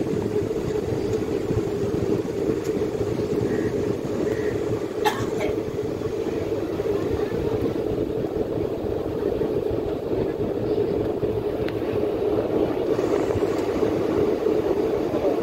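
Steady running noise of an Indian Railways passenger coach at speed, heard from its open doorway: an even rumble and rush from wheels and track. A single sharp click comes about five seconds in.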